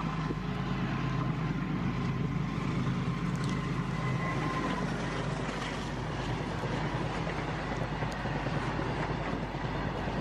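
WDG-4G diesel locomotive passing at the head of a long freight train, then the steady rumble of open freight wagons rolling by on the rails. A faint steady whine runs through the first half and stops about five seconds in.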